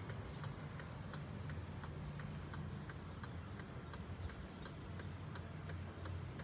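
Steady, even ticking at about three ticks a second over a faint low hum.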